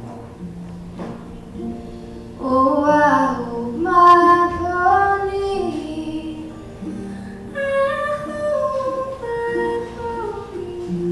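Woman singing a slow folk song live, accompanied by a small acoustic string instrument played softly. After a quieter opening, she sings two long phrases, one a few seconds in and one about halfway through.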